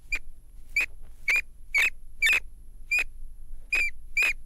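Rat squeaking: eight short, sharp squeaks, about one every half second.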